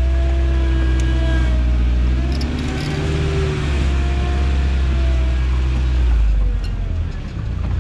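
Toyota off-road truck's engine running, its pitch slowly rising and falling. A heavy low rumble eases off about six and a half seconds in.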